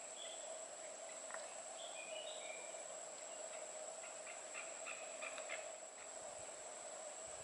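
Outdoor garden ambience: a steady high insect drone with a few short bird chirps in the first couple of seconds and a quick run of chattering chirps about four to five seconds in.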